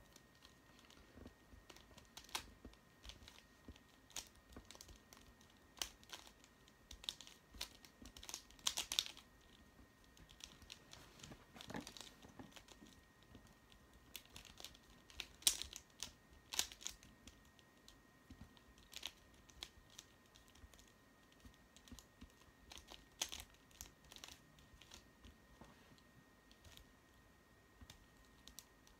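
A mirror cube being turned quickly by hand during a solve: irregular plastic clicks and clacks of its layers turning, with a few louder snaps among them.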